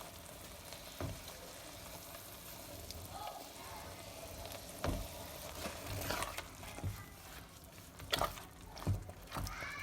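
Palak paneer cooking in a pan, a soft steady sizzle, while a spoon stirs it, with scattered clicks of the spoon against the pan that come more often in the second half.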